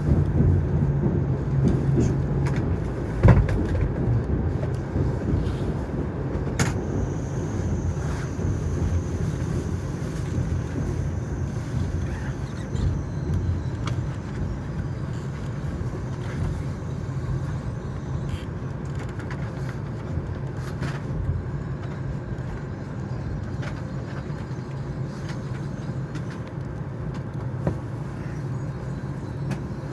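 Interior running noise of an N700S Shinkansen car: a steady low rumble and hum from the wheels and running gear, slowly getting quieter as the train nears Shinagawa. There is a single sharp knock about three seconds in.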